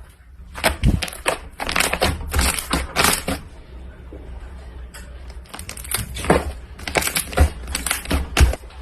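Slime being squished and pressed by hand, giving quick runs of sharp crackles and pops, with a short lull in the middle.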